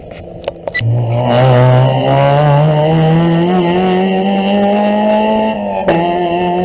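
Rally car engine under hard acceleration, its pitch climbing steadily for about five seconds. A few sharp pops come just before it and one sharp crack about six seconds in.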